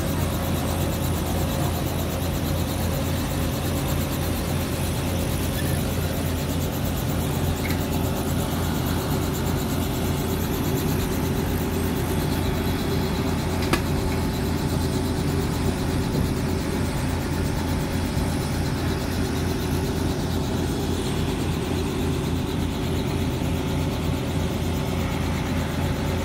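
Robinson R44 helicopter's piston engine and rotor running at ground idle: a steady low drone with a fast, even pulse.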